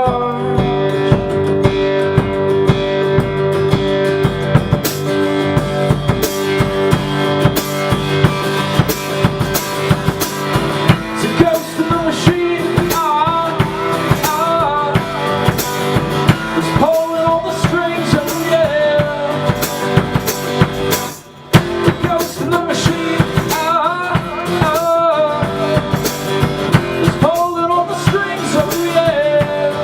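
Instrumental rock music: a drum kit keeps a fast, steady beat under guitar and a wavering lead line. The band drops out for a moment about two-thirds of the way through, then comes back in.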